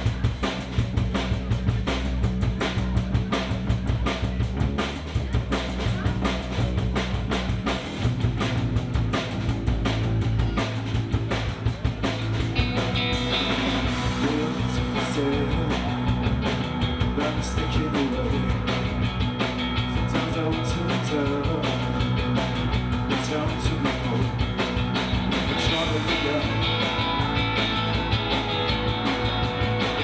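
A live band playing on drum kit, electric bass and electric guitar, with a trumpet; a steady drum beat and bass line carry the first part, and the sound fills out with a fuller melody line about twelve seconds in.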